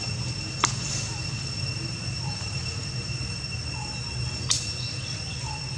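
Steady high-pitched insect drone of crickets or cicadas in the trees, over a low rumble, with two sharp clicks, one just after the start and one about four and a half seconds in.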